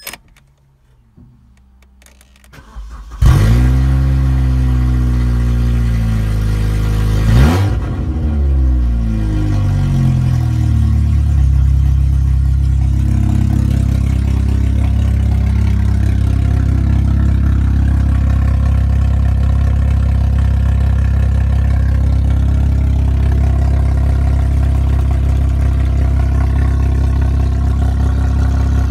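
Opel Astra G's 1.8 X18XE1 16-valve four-cylinder petrol engine being started: it catches about three seconds in, flares up and settles. It is blipped once briefly about seven seconds in, then runs at a steady idle.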